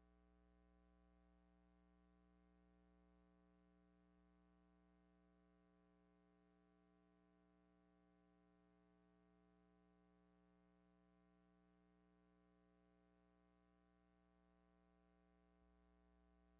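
Near silence: only a faint steady hum with light hiss, as the film has no soundtrack.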